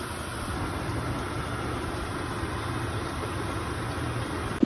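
Steady low hum and rumble with a light hiss, unchanging throughout, cut off abruptly near the end.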